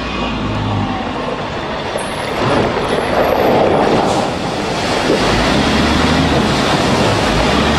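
Bushmaster armoured vehicle driving, its engine and tyre noise mixed with heavy wind noise on the microphone, swelling a few seconds in.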